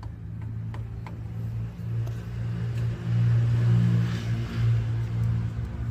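Hyundai Accent 2013 engine running with a low, steady rumble ("ronquido"), swelling louder about halfway through. The rumble comes from worn pistons with play in their cylinders.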